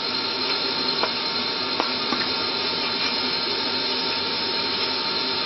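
Extractor fan running steadily: an even rushing noise with a faint whine in it. Two faint light clicks come about one and two seconds in.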